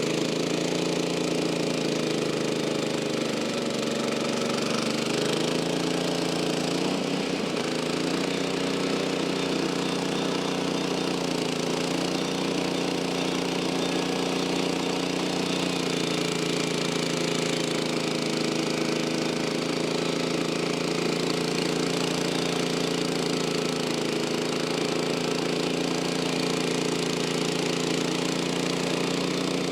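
Portable sawmill's gasoline engine running steadily, with its pitch sagging briefly about seven seconds in before recovering.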